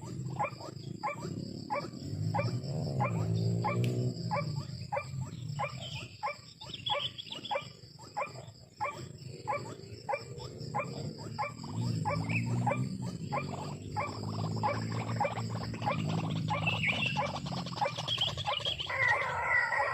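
White-breasted waterhens (ruak-ruak) calling: a rapid run of short repeated notes, about two or three a second, with deeper grunting calls that rise and fall in pitch at times. A louder, higher call begins near the end.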